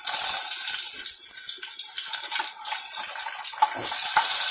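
Food frying in a hot pan, a steady high hiss of sizzling, with a few light clicks near the end.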